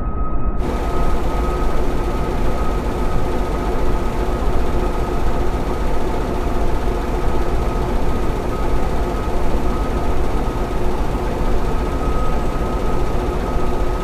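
Custom-made sound effect for a fictional tripod war machine: a steady, deep mechanical rumble with several held humming tones over it, the hiss above filling in about half a second in.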